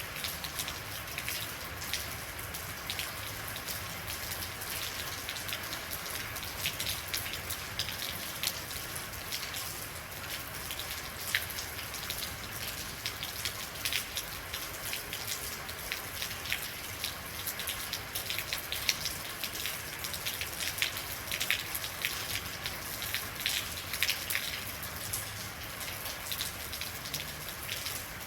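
Steady rain, with many separate drops pattering sharply on a hard surface over an even hiss.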